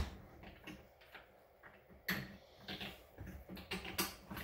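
Faint, irregular clicks and light knocks of a UTV windshield panel being handled and pressed into place against its roll-cage mounts.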